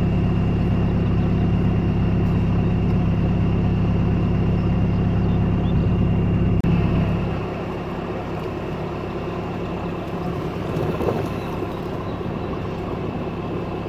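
Off-road 4x4 engine running steadily close by, a low even hum. A little past halfway it gives way abruptly to a quieter engine rumbling further off.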